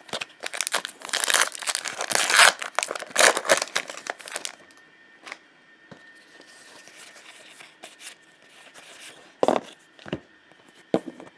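A foil Magic: The Gathering booster pack wrapper being torn open and crinkled in the hands for the first few seconds. Then quieter handling of the cards, with a couple of sharp taps near the end.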